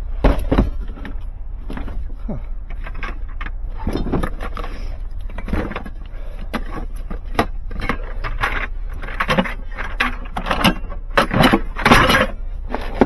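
Irregular clicking, clinking and rustling of cables and gear being handled, with a denser run of clatter near the end, over a steady low hum.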